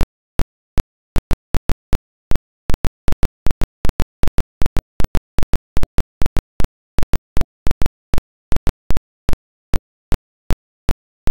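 Irregular sharp clicks and pops, about three or four a second, with dead silence between them: crackle on the soundtrack of an otherwise silent old film transfer.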